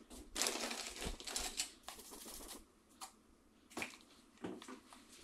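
Plastic hair-cutting parts and their packaging being rummaged through and handled in a cardboard box: a stretch of rustling and clattering, then a few separate clicks.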